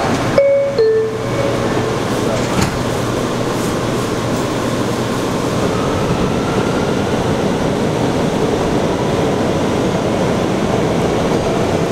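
Two-note falling door chime sounds about half a second in. The Bombardier R179 subway car then runs along the track with a steady rumble and a faint rising whine as it picks up speed.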